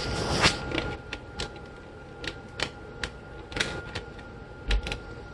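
Irregular clicks and small knocks of plastic PC power connectors being handled and plugged into a motherboard's auxiliary CPU power and main power sockets.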